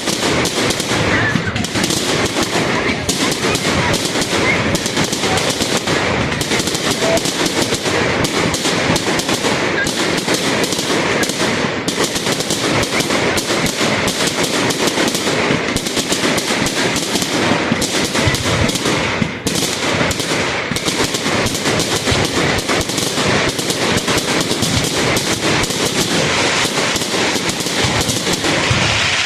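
Fireworks going off in a continuous rapid barrage of bangs and crackles, many shots a second.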